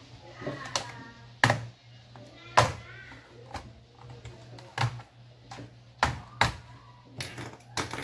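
Sharp plastic clicks and snaps, irregular and about a second apart, as a laptop's case is pried open and its retaining clips let go, over a steady low hum.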